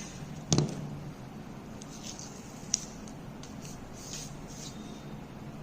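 Quiet handling noises as a garlic flake is pressed onto the skin and covered: a soft knock about half a second in, then faint rustling and a single light tick.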